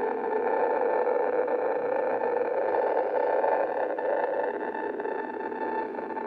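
Black MIDI playback: a dense wall of rapidly repeated synthesized MIDI notes that blurs into a steady droning buzz, with one high tone held throughout.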